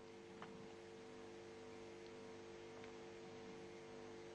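Near silence: a faint steady electrical hum with hiss on the broadcast audio line, and a few faint clicks.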